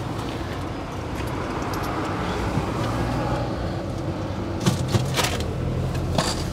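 Vending machine working to deliver a bag of gyoza dumplings: a steady mechanical hum, then a few sharp clacks near the end as the clear plastic flap of the pickup bay is lifted.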